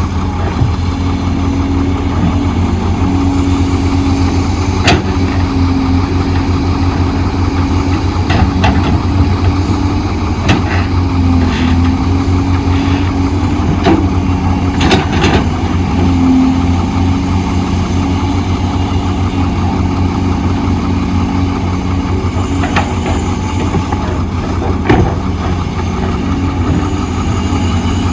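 Heavy diesel earthmoving machinery running with a steady low throb, its pitch shifting up and down a little. A few sharp clanks and knocks sound over it.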